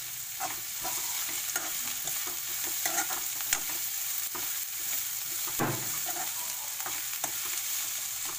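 Onion rings, cabbage, capsicum and green chillies stir-frying in hot oil over high flame: a steady sizzle, with a steel spoon scraping and clicking against the pan as the vegetables are tossed.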